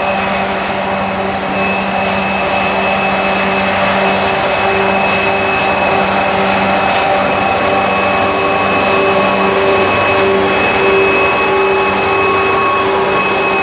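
BDZ class 07 'Ludmilla' diesel locomotive's V16 engine working under load as it hauls a freight train past, a steady deep drone with a high whine above it, growing slightly louder as it approaches. Right at the end the pitch drops as the locomotive goes by.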